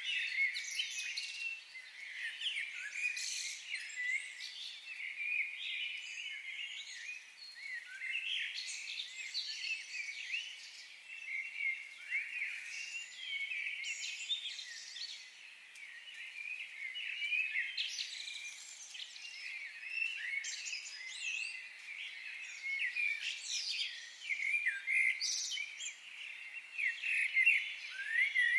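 Many forest birds singing and chirping at once, a dense chorus of overlapping trills and calls that swells and eases every few seconds.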